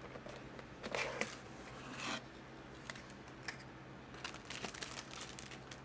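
Cardboard shipping box being opened by hand: flaps pried apart and packaging handled, giving scattered clicks and scrapes and a longer rustling tear about two seconds in.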